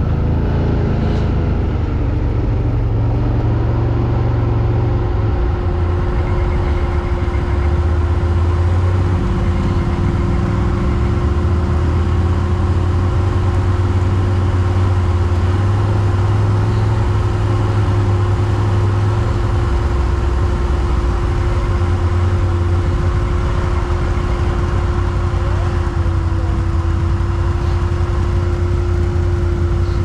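Quad bike (ATV) engine running steadily under changing load as the machine is ridden, its low note shifting every few seconds. A steady whine sits above it, rising once near the start.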